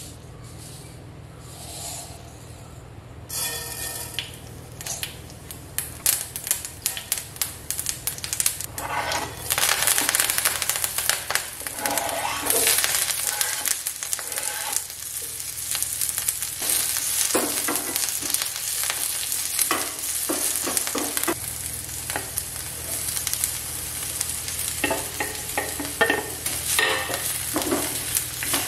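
Onion frying in hot oil in a non-stick pan: sizzling, dotted with crackles, that starts about three seconds in and gets louder after about nine seconds. Near the end grated beetroot is stirred through with a wooden spatula, scraping against the pan. A steady low hum runs underneath.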